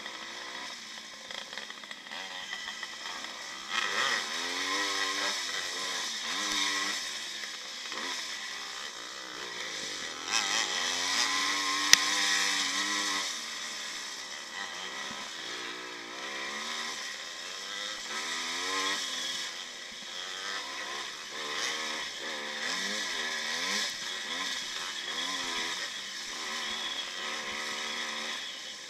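1955 Maico two-stroke single-cylinder motocross engine racing, its pitch rising and falling over and over as the throttle opens and closes through the gears. One sharp knock near the middle.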